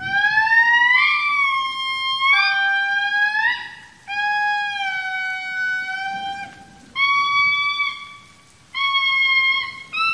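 Indri singing: a loud series of long, pure, horn-like notes. The first note rises, the later ones are held and step down in pitch, and there are short breaks between them.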